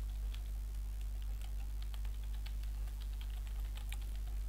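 Typing on a computer keyboard: a quick, irregular run of keystrokes entering a line of text, over a steady low electrical hum.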